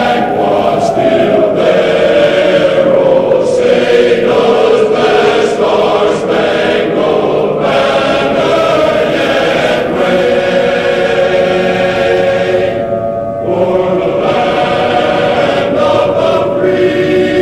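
A choir singing slow, drawn-out notes, a choral rendering of the national anthem. A long held note slides slowly downward over the first few seconds, then the voices settle into steady held chords.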